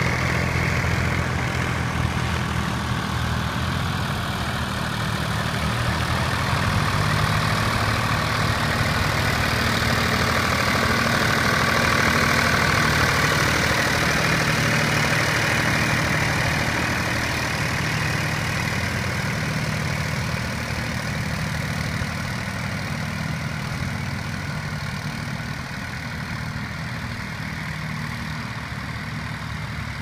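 Three-cylinder diesel engines of Nuffield tractors running steadily under load while pulling ploughs. The sound swells as a tractor passes close, is loudest a little before the middle, then fades as the tractors draw away.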